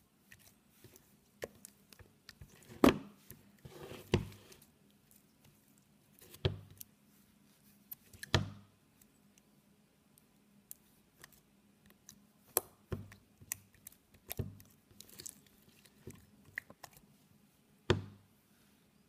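Clicky slime being poked, squeezed and stretched by hand, giving irregular sharp clicks and wet pops with short quiet gaps between them. The loudest pops come about three seconds in and just before the end.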